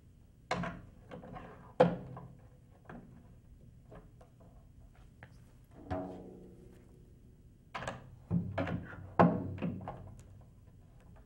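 Metal tom-tom holder arms knocking and clunking as they are fitted into the mount on a Pearl bass drum, several hard knocks with the drum shell ringing briefly after some of them. The loudest knock comes about two seconds in, with a cluster of knocks near the end.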